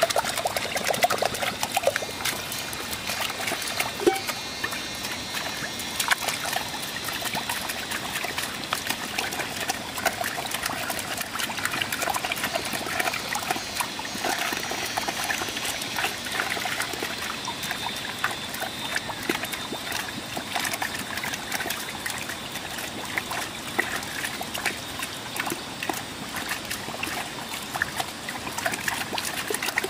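Water trickling and splashing steadily, with many small splashes and drips.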